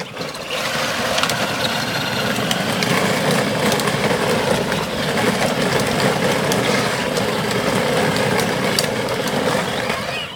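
Battery-powered ride-on toy ATV driving along a rough asphalt path: its hard plastic wheels rumble and grind on the pavement over the whine of its small electric drive motors. The noise stops abruptly at the very end, as the quad halts.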